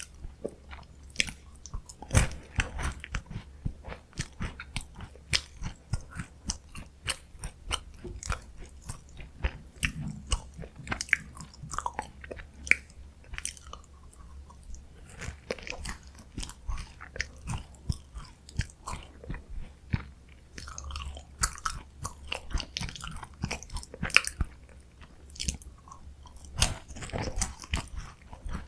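Close-miked chewing of crunchy chocolate snacks: a steady, irregular run of crisp crackles and crunches, with a few louder bites scattered through.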